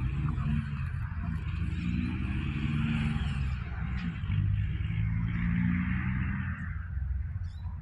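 Diesel locomotive approaching along the track, its engine a low steady hum that shifts slightly in pitch, with a steady higher hiss above it.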